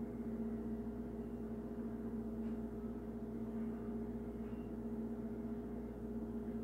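Steady background hum of the room: a low drone holding two unchanging pitches, with no other clear sound.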